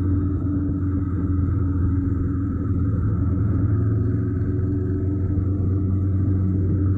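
Honda NC750X motorcycle's parallel-twin engine running steadily at an even cruising speed, picked up by a camera on the front fork near the wheel.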